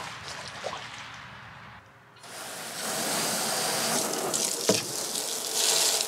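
Water from a garden hose pouring and splashing into a rubber livestock water trough. There is a short lull about two seconds in, then the pour is louder and steady.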